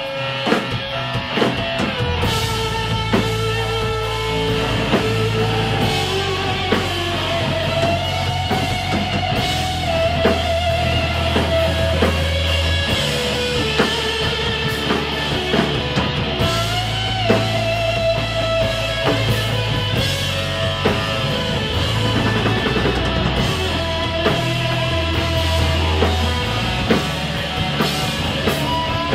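Rock band playing live, loud and continuous, with no vocals. An electric guitar plays a lead line with bent, gliding notes over a steady bass and a drum kit.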